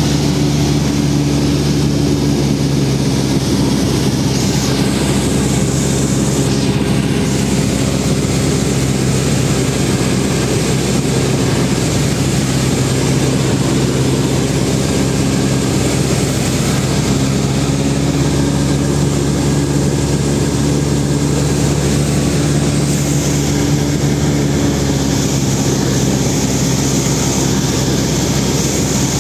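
Cessna 172's engine and propeller running steadily in flight, heard from inside the cockpit as a constant low hum.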